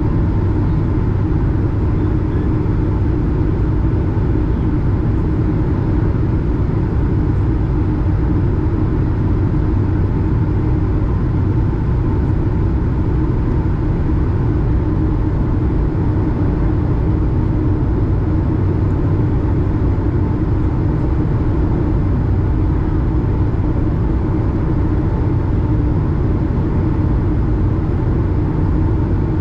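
Steady cabin noise inside an Airbus A220 on approach: the rumble of airflow and its Pratt & Whitney PW1500G geared turbofans, with a few steady humming tones over it.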